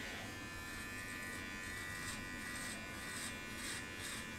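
Manscaped Lawn Mower 4.0 electric body trimmer running with a steady buzz, with short repeated rasps as it is drawn over body hair on the chest and belly.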